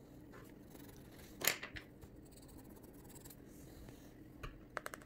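Wooden colored pencils tapping and clicking on a hard tabletop: one sharp tap about a second and a half in, a couple of lighter ones just after, and a quick run of small clicks near the end, over faint room noise.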